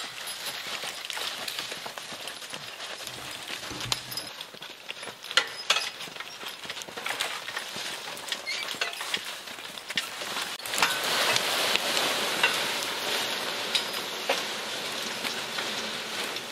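Team of draft horses pulling a wheeled logging cart through snow: a steady crunching and scraping with many small clicks and jingles from hooves and harness, swelling about two thirds of the way through.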